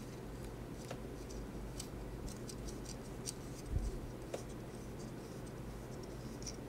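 Faint scattered clicks and scratches of hands handling a clear plastic bias tape foot and a strip of fabric, turning the foot's width-adjustment screw, with one low thump about four seconds in.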